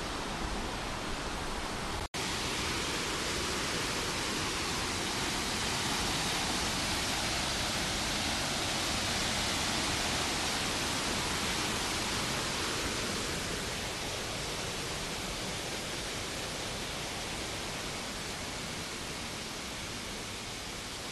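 Rushing water of a small waterfall on a rocky rainforest creek: a steady hiss that swells slightly in the middle and eases toward the end. The sound cuts out for an instant about two seconds in.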